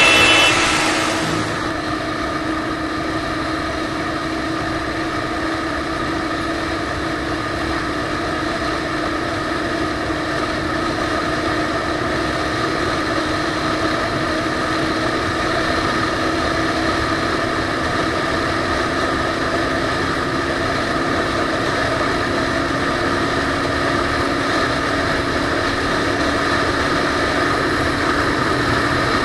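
Royal Enfield Thunderbird's single-cylinder engine running steadily at cruising speed, muffled by the action camera's waterproof case. Background music fades out in the first second or two.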